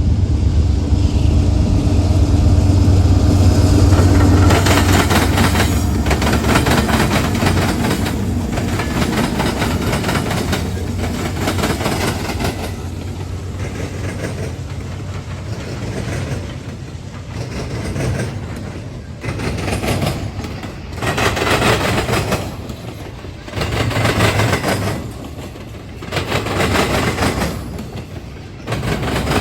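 Eastbound CSX intermodal train passing over a railroad diamond crossing: the three diesel locomotives go by first with a loud low drone, then the cars roll past, their wheels clattering across the diamond in repeated loud surges a second or two apart.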